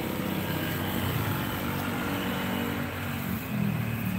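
Road traffic: car and motor scooter engines running past, with one engine note rising near the end.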